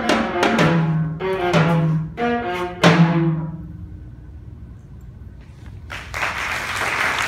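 Viola and four drums playing their last notes together, ending on a final struck note about three seconds in that rings away to quiet. About six seconds in, audience applause begins.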